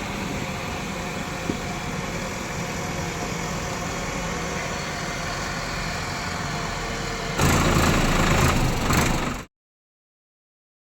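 Heavy-machine engine running at idle, louder from about seven seconds in, then cutting off suddenly to silence.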